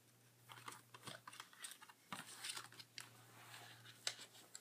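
Faint, scattered small clicks, taps and rustles of a small white packet from an iPad box being handled and opened by hand.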